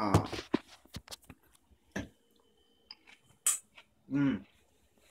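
A man eating a mouthful of salad: scattered clicks and knocks from handling, and two short hums, one at the start and one about four seconds in, the later one an 'mm' while chewing.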